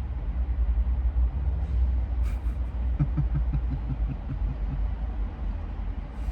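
Steady low rumble of a vehicle running, with no speech over it.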